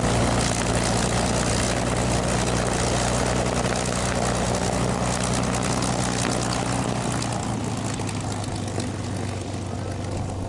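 P-51 Mustang's Packard Merlin V-12 engine and propeller running at low taxiing power, a steady drone that fades somewhat over the last few seconds as the plane moves away.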